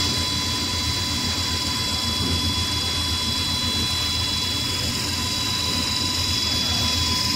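Fish feed extruder production line running: a steady machine drone with a low hum and constant high-pitched whining tones.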